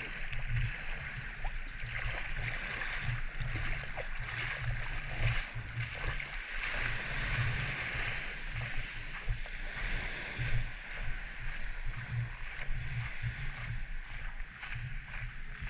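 Small waves washing onto a sandy shore, a steady hiss of surf that swells for a few seconds midway, with wind rumbling on the microphone.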